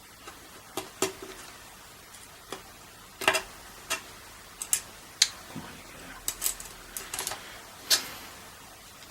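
Irregular sharp clicks and taps of small metal and plastic parts being handled as a car radio is put back together: locating clips and screws being fitted to its side plate.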